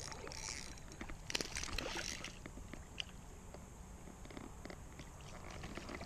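Creek water splashing and sloshing close to the camera, with scattered clicks and knocks, settling after about two seconds into a low rumble with a few faint ticks.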